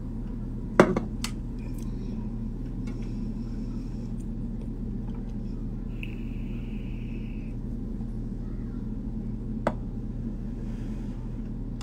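Steady low room hum, broken by a sharp knock about a second in and a smaller click near the end. Around the middle comes a short high hiss as a vape pen is drawn on.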